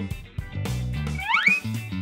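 Upbeat children's background music with a plucked guitar and a bass line, without speech. About halfway through comes a short rising pitched glide.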